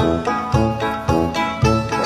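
Upbeat background music with a steady beat, about two beats a second, and bright bell-like notes.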